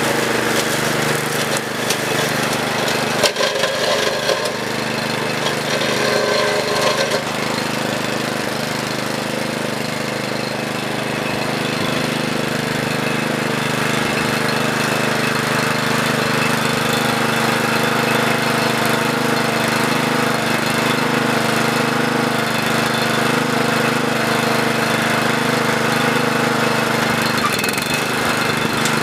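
Walk-behind brush hog's small gasoline engine running steadily under load while its blade cuts through grass and brush, with a few sharp knocks in the first several seconds.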